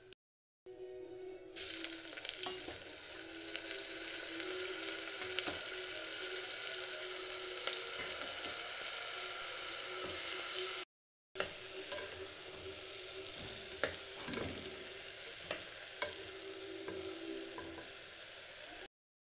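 Cashews and whole spices frying in hot oil in an aluminium pressure cooker: a loud, steady sizzle that sets in about a second and a half in. After a brief break near the middle it goes on more quietly, with clicks and scrapes of a metal spatula as soaked rice is stirred through the hot fat.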